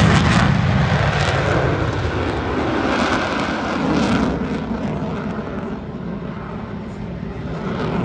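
Jet noise from an F-22 Raptor's two Pratt & Whitney F119 turbofans as the fighter climbs away. The deep rumble is loudest at the start and fades over the next several seconds, swelling a little again near the end.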